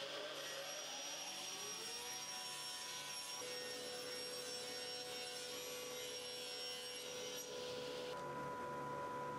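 Table saw running with a steady whine, its pitch rising over the first couple of seconds as the blade comes up to speed. A hiss over the top cuts off about eight seconds in.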